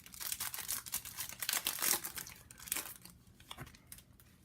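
Plastic wrapper of a sealed trading-card pack crinkling and tearing as it is worked open, a stubborn pack that won't open easily. The crackling is busiest for about three seconds, then dies down.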